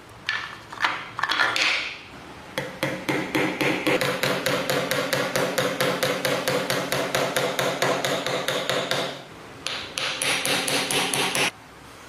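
A small hammer tapping rapidly on the wooden box of an old coffee mill, about six or seven light taps a second in long runs, with the wood ringing under them. There are a few separate taps at first and a short pause about two-thirds of the way in, and the tapping stops shortly before the end.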